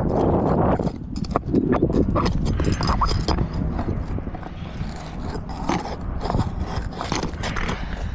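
Irregular knocks, taps and scrapes from hand tools and asphalt shingles being worked loose on a shingle roof, over a steady low rumble.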